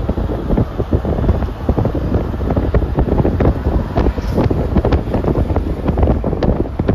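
Wind buffeting the microphone of a camera on a moving vehicle: a loud, continuous low rumble with frequent crackles.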